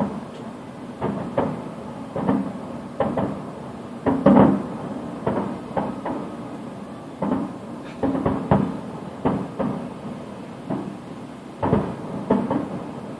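Fireworks shells bursting: a run of irregular booms, roughly one a second, each trailing off briefly, the loudest about four seconds in.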